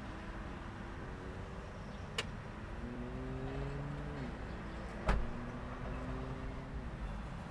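Road traffic at an intersection: a motor vehicle accelerating away, its engine pitch climbing slowly and dropping at gear changes about four and seven seconds in, over a steady rumble of traffic. Two sharp knocks, about two seconds and five seconds in, the second one louder.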